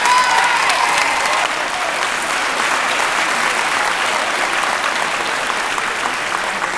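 Large audience applauding, with a few voices calling out in the first second or so, gradually easing off.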